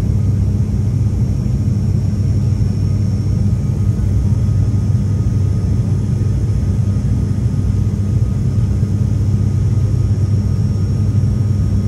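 Cabin drone of an ATR 42's turboprop engines and propellers in flight on approach: a steady, loud low hum with a second, higher hum above it, unchanging throughout.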